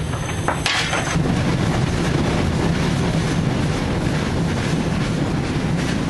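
Steam locomotive running, heard from inside its cab: a steady rumble and rattle from the moving engine, with a short scraping noise about a second in.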